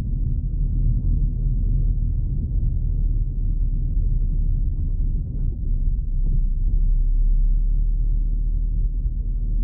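Inside a moving car: a steady low rumble of engine and tyres on the road.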